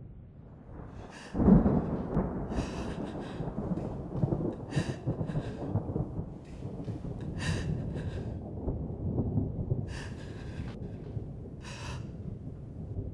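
A sudden deep boom about a second and a half in opens into a low, sustained rumble. Over it come sharp gasping breaths every couple of seconds, like someone fighting back sobs.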